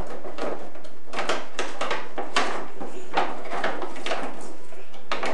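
Thin plastic bag rustling and crinkling as a child's hands rummage through the Christmas ornaments inside it, in a string of short crackles and small knocks.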